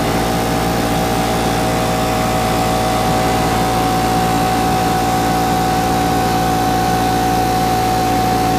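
Small Craftsman oilless air compressor running steadily just after start-up, its motor and pump building pressure in the tank. A steady hum with a constant whine over it.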